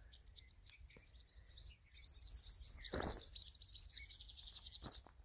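Small birds chirping. A quick, busy run of short high chirps picks up about a second and a half in and carries on to the end.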